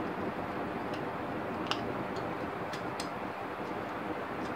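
A few small, sharp clicks and ticks of parts and tools being handled while a projector is reassembled, over a steady background hiss.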